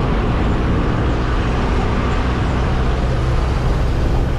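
KSRTC bus's diesel engine running steadily with road noise while the bus drives along, heard from inside the bus.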